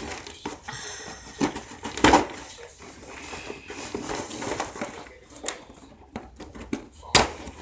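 Cardboard snack box being handled and opened: irregular knocks and clatters, the loudest about two seconds in and again near the end, with rustling between.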